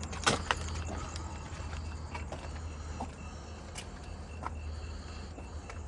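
A few scattered sharp taps or clicks over a steady low hum, with a faint, evenly repeating high chirp from about three seconds in.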